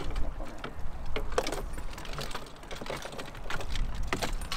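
Scattered clicks and small metallic clinks of fishing tackle being handled on a boat, over a steady low rumble of wind and the boat.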